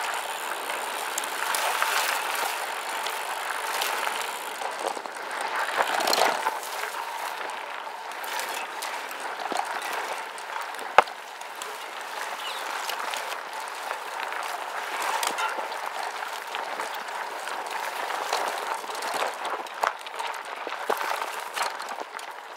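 Gravel bike tyres crunching over a loose dirt and gravel fire road, a steady crackling hiss with scattered small ticks and one sharp click about eleven seconds in.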